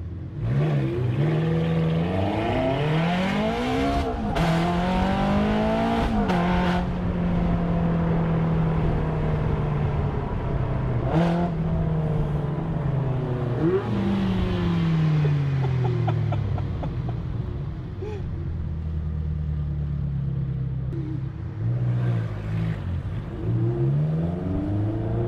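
Ferrari F430's V8 engine heard from inside the cabin, revving up through the gears with two quick upshifts about four and six seconds in. It then cruises at a steady pitch, eases off slowly around the middle, and pulls up again near the end.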